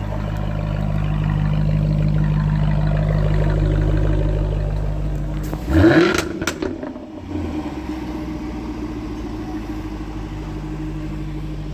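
Jaguar F-Type's engine and exhaust idling, then a single sharp throttle blip about six seconds in that climbs quickly and is followed by a few sharp pops as it falls away, before it settles back to a steady idle.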